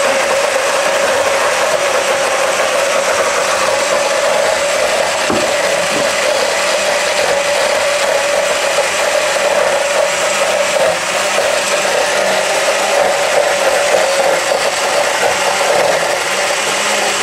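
Countertop blender motor running steadily, chopping basil, garlic and olive oil into pesto while a spatula pushes the leaves down into the blades.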